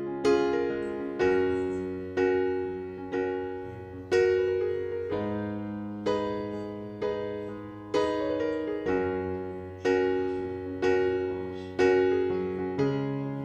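Background music: a slow piano or electric piano piece, notes and chords struck about once a second and left to ring out.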